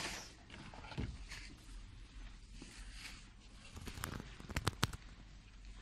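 Handling noise from a phone being moved while filming, a faint rustle and a few knocks over a low steady shop hum, with a short cluster of sharp clicks a little after four and a half seconds in.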